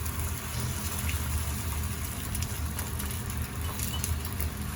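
Food sizzling in a frying pan, a steady faint hiss with a few light ticks over a continuous low hum.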